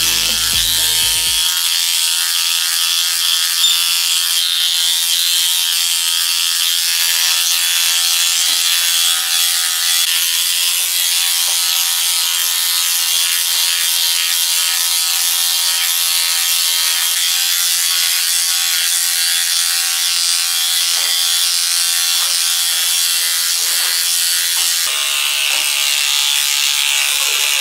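Electric dog clippers running steadily as the blade shaves through a poodle's thick, matted coat, a continuous buzz with a dense rasping hiss from the blade in the fur.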